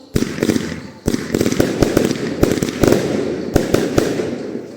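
Fireworks display: a rapid string of about a dozen loud shell bursts, with dense crackling between the bangs, that thins out and fades near the end.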